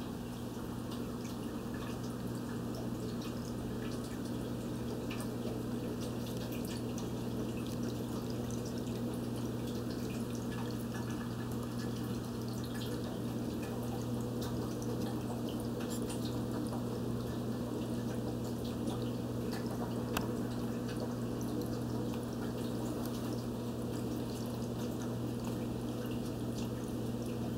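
Aquarium filter running in a turtle tank: a steady low hum with water trickling and dripping, many small drips and bubble ticks scattered throughout.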